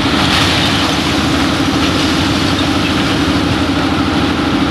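Excavator's diesel engine running steadily, a constant heavy engine drone with no change in speed.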